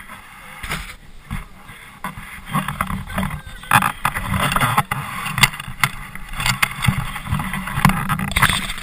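Handling noise from an action camera held close to a jacket: rustling and scraping with frequent small knocks and clicks.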